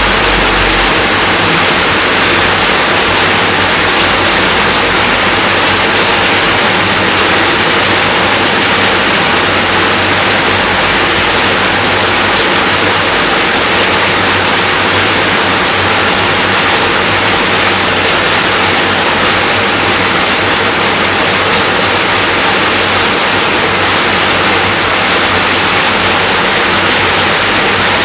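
Steady rainfall, a dense, even hiss without let-up.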